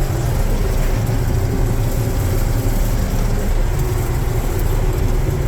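1978 John Deere 4400 combine running steadily under load while shelling corn, moving slowly through downed stalks: a loud, even, deep machine drone.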